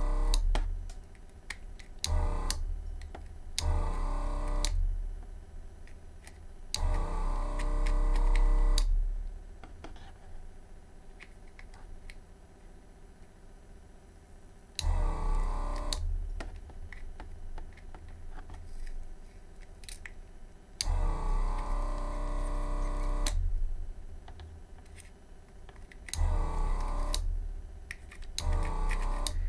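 Yihua 948 desoldering station's vacuum pump buzzing in several bursts of one to two seconds each, with pauses between, as the desoldering gun's trigger is pulled to suck molten solder off a circuit board's joints.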